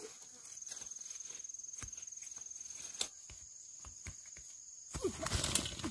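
Steady high-pitched insect trill, with scattered light clicks and a louder burst of noise about five seconds in.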